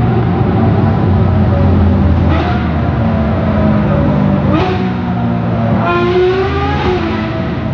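Racing engines running hard, their pitch climbing and dropping with gear changes several times.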